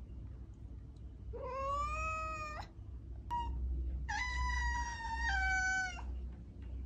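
Domestic cat meowing three times: a drawn-out meow that rises in pitch, a short chirp-like call, then a long meow that drops lower partway through. A steady low hum runs underneath.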